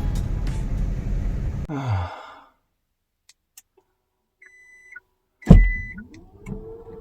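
Car running with road noise, which dies away with a falling glide about two seconds in. After a pause come two short high electronic beeps, a loud thump with the second, and a rising hum that settles into a steady tone near the end.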